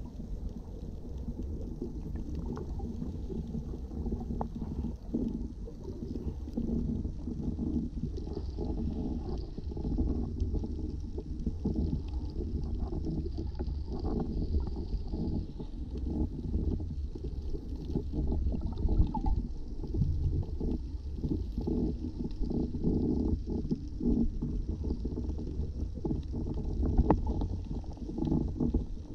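Underwater ambience picked up by a submerged camera: a steady low rumble of moving water, with scattered faint clicks and knocks.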